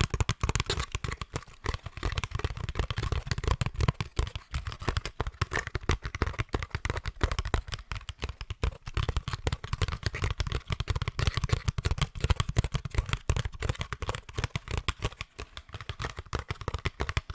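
Rapid tapping and scratching on a basket, a dense, unbroken run of small crackling clicks.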